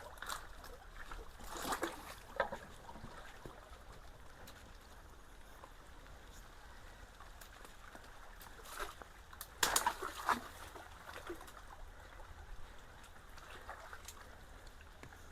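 Water running and trickling through a culvert as the clog is cleared, with sloshing splashes in the water a couple of times, about two seconds in and again about ten seconds in.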